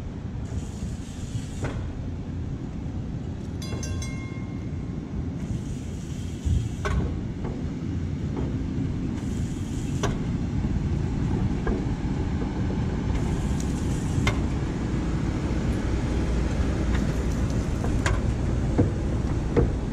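PCC streetcar rolling slowly past on its track: a steady low rumble that grows a little louder as it comes close, with scattered clicks and knocks from the wheels on the rails. A brief ringing tone sounds about four seconds in.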